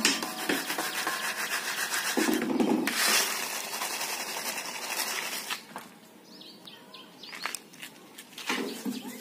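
Crisp puffed fryums rattling and rustling in a plastic mesh basket as it is shaken to sift loose roasting grains off them, the grains hissing through the mesh. The shaking is busiest at first and eases to scattered light rattles about halfway through.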